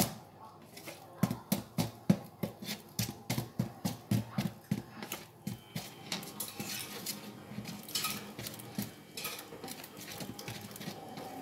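Wire whisk beating batter in a plastic bowl: quick, even clicks of the whisk against the bowl, about three a second, giving way to softer stirring and scraping after about five seconds.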